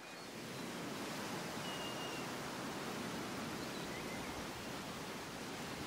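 Steady road and tyre noise heard inside a moving car's cabin, growing a little louder in the first second.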